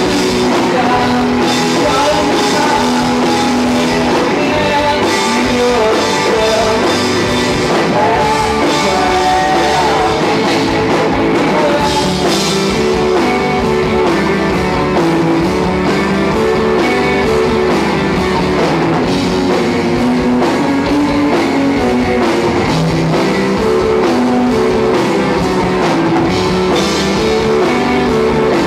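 Live rock band playing, with several electric guitars over a drum kit.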